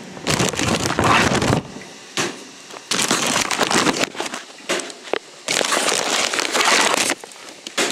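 Thin plastic bag being handled close up, crinkling and rustling in several bursts of about a second each, with short pauses between.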